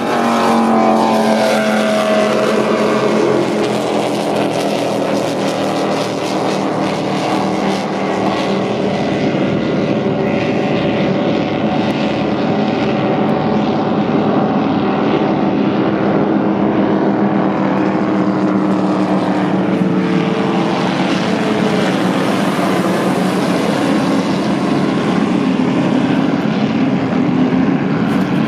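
Offshore racing powerboat engines running flat out: a loud, many-toned engine note that drops in pitch as a race boat passes close by in the first couple of seconds, then a steady drone as the boats race away, with another pitch sweep from a passing boat about twenty seconds in. Wind and spray hiss sit underneath.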